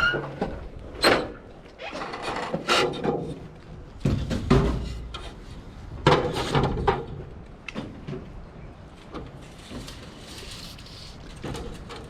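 Sheet-metal trim being worked on a metal brake: an irregular run of clunks, knocks and rattling scrapes, with the heaviest clunks about 1, 4 and 6 seconds in.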